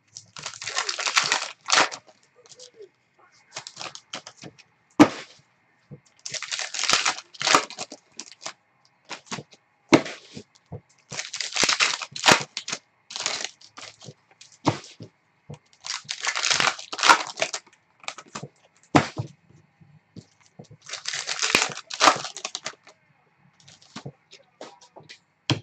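Trading-card pack wrappers being torn open and crinkled by hand, in five bursts about five seconds apart, with sharp clicks between.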